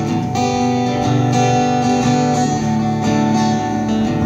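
Acoustic guitar strummed, chords ringing in a steady rhythm with no voice over them.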